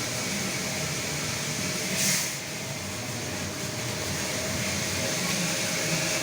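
Steady mechanical hum and hiss of a running CNC machine, with a faint steady tone and a brief louder hiss about two seconds in.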